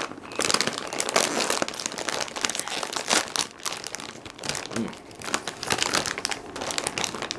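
Bag of Takis rolled tortilla chips being handled and opened, its packaging crinkling in dense, irregular crackles.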